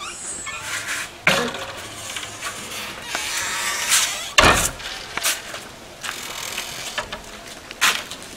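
A run of scattered knocks and scuffing noises over a steady background hiss, loudest in a sharp thud about four and a half seconds in.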